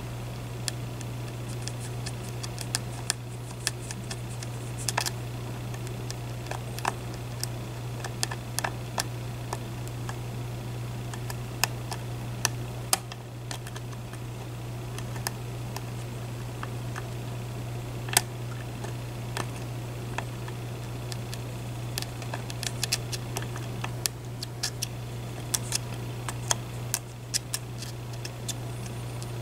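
Small, irregular metallic clicks and ticks of a hook pick and tension wrench working the pins of a Medeco Biaxial lock cylinder, with a steady low hum underneath.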